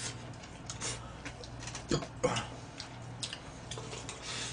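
Eating noises at a table: chewing and slurping, with scattered light clicks of chopsticks and a fork against plastic takeout trays, two sharper clicks coming about two seconds in.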